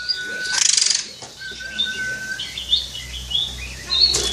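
Oriental magpie-robin (kacer) singing: long steady whistled notes, a quick buzzy rattle just after the start, and a run of varied high chirps and twitters.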